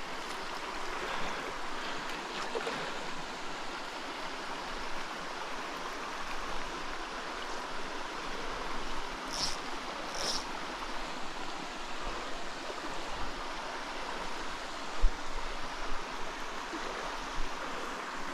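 Small mountain stream running steadily over rock. Two brief high blips sound about nine and ten seconds in, and a short low thump comes about fifteen seconds in.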